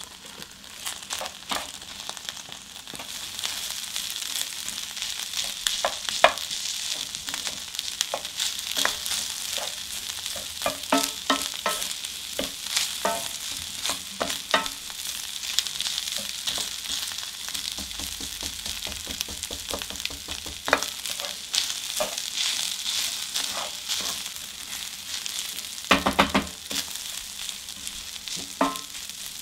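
Fried rice with bean sprouts and noodles sizzling in a hot cast-iron skillet, stirred and scraped with a wooden spoon. The spoon knocks against the pan often, with a cluster of louder knocks near the end.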